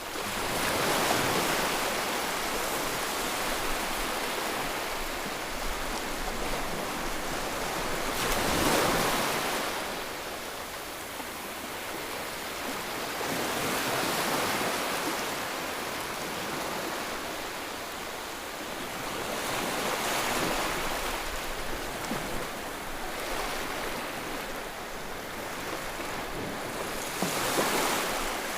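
Ocean surf used as white noise: a continuous hiss that swells and falls back about every six seconds as waves break and wash out.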